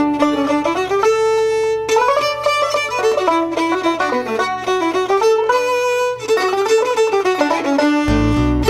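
Instrumental break in an Irish folk song: a fiddle plays the melody over light accompaniment, and the bass and full band come back in near the end.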